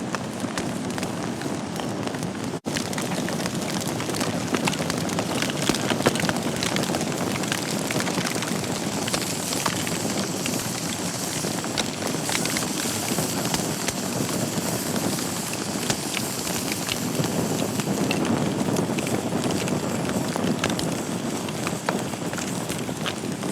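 Wood fire burning in a fireplace: a steady hiss of flames with many small crackles and pops throughout. The sound drops out for an instant about two and a half seconds in.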